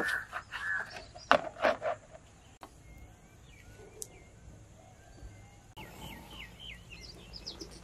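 Wet squishing and slapping as hands mix marinated fish pieces in a bowl, loudest in the first two seconds. It then drops to quieter background with faint bird chirps and a single click, and near the end a quick run of light scrapes as a wooden spatula stirs in a clay pot.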